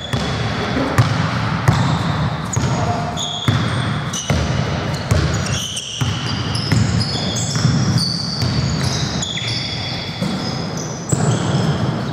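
Basketball play on a hardwood gym floor: the ball dribbling in repeated knocks, sneakers squeaking in many short high chirps, and players' voices calling out.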